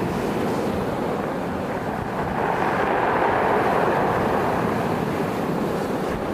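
Steady rushing noise of wind and surf on a stormy coast, with wind buffeting the microphone.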